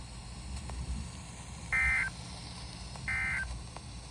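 Emergency Alert System SAME data tones: two short, buzzy two-tone digital bursts about a second and a half apart, the first nearly two seconds in. They are the end-of-message code that closes the severe thunderstorm warning, heard over a low steady background hiss.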